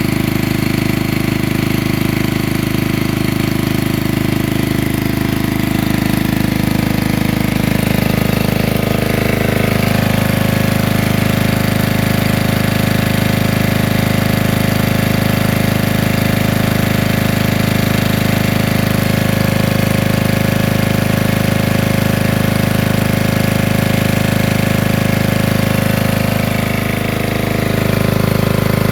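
Generator engine running steadily, its pitch shifting slightly about a third of the way in and dipping briefly near the end.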